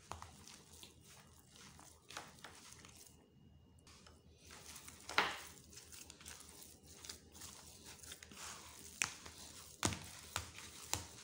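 A hand mixing ground egusi (melon seed) with blended onions in a plastic bowl: faint, irregular rustling as the mixture is worked and squeezed, with a couple of sharper knocks about five and ten seconds in.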